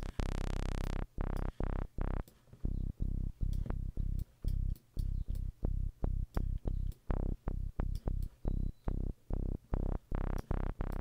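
Software synthesizer bass (Logic's Alchemy, a Minimoog-style sawtooth patch with an envelope sweeping the filter cutoff) playing one long note, then rapid short repeated notes, about three to four a second. A few notes around the middle and near the end come out brighter as the envelope shape is changed.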